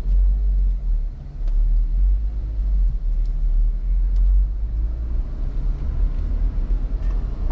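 Steady low rumble inside a Jeep Wrangler's cabin as it drives slowly: engine and road noise.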